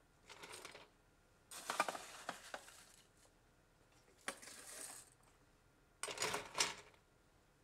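Ice cubes clattering into a cocktail vessel in four short bursts of hard clinks, the loudest about two seconds in.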